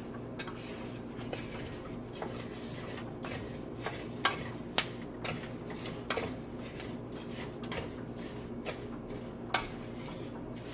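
A cooking utensil stirring rice as it fries in oil in a pan, scraping and clinking against the pan in irregular strokes, over a steady low hum.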